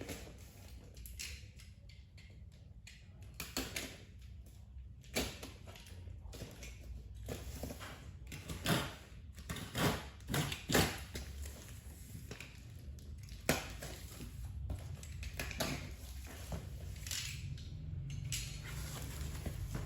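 Plastic packaging of false eyelashes being handled during unboxing: irregular crinkles, rustles and taps, with a few louder crackles near the middle, over a low steady hum.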